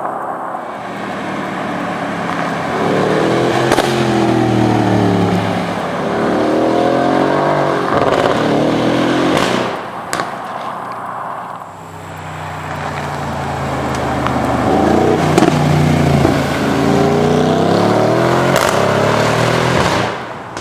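Mercedes-AMG GLE 63 S Coupé's twin-turbo V8 accelerating hard twice, its pitch climbing and dropping back through several upshifts in each run. A few sharp exhaust pops and crackles, the loudest about halfway through as the revs fall away.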